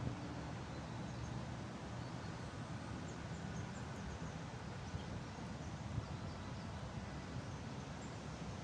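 Eurasian red squirrel gnawing at a walnut shell: faint scraping with a couple of small clicks about five and six seconds in. Under it, a steady low outdoor rumble and a few faint high bird chirps.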